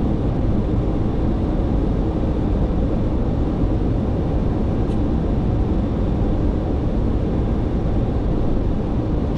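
Steady low rumble and rushing air of an airliner's flight deck in flight, with a faint click about five seconds in.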